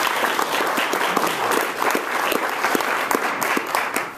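Audience applauding, many people clapping at once; the clapping dies away near the end.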